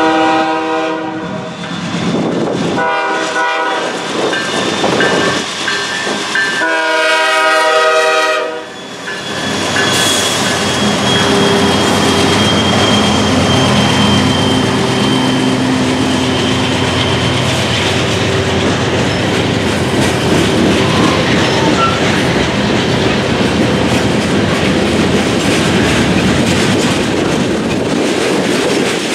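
Nathan K5H five-chime air horn on a GE C44-9W diesel locomotive sounding three blasts: a long one ending about a second in, a short one, and another long one that ends near nine seconds. The two GE diesels then pass close by with their engines running, followed by tank cars and covered hoppers rolling past, wheels clicking over the rail joints.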